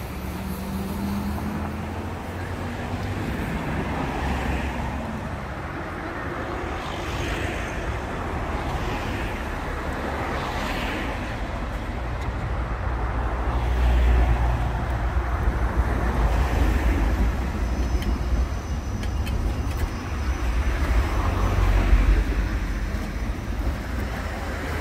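Tatra tram rolling slowly past on its rails with a low rumble that swells twice, about halfway through and again near the end, over the hum of street traffic.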